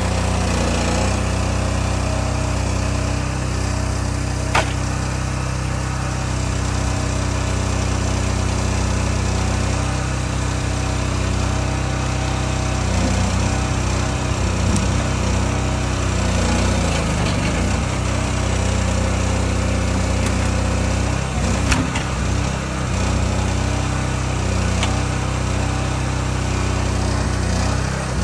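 Engine of a trailer-mounted knuckleboom log loader running steadily as the grapple works in a log pile. A few sharp knocks come through, the loudest about four and a half seconds in and another a little past twenty seconds.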